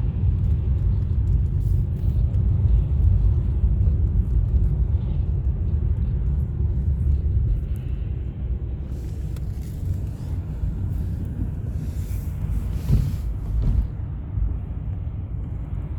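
Steady low rumble of road noise heard from inside a moving vehicle, with a couple of brief hissing swells about ten and thirteen seconds in.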